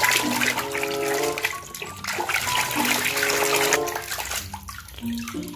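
Water splashing and sloshing as a toy car is scrubbed by hand in a tub of muddy water, easing off near the end, with background music playing a simple melody.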